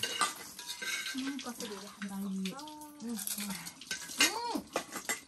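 Women's voices in short exclamations and chatter over the wet crunching and slurping of panipuri being eaten, with sharp clicks of a spoon in a steel bowl.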